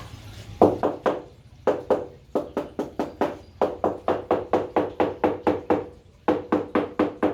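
Repeated hammer blows in quick runs of about four or five a second, each blow with a short ringing tone; the runs break off briefly a few times.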